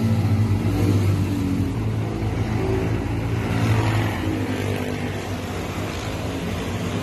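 A motor running steadily, a continuous low hum.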